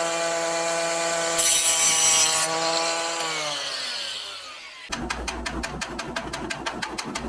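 Small power cutting tool such as an angle grinder spinning with a steady whine, cutting into the metal screw end with a harsh rasp for about a second, then winding down with falling pitch. About five seconds in, a different rapid, even ticking over a low hum begins.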